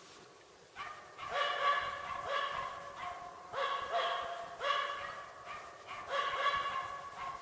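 Finnish Spitz barking in a steady rapid series of short, high barks, about two a second, starting about a second in. This is the sustained bark a bark pointer uses to mark game it has found up a tree.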